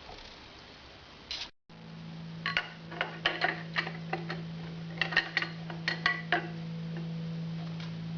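A dozen or so light, sharp metallic clicks and taps over about four seconds, over a steady low hum that starts and stops abruptly.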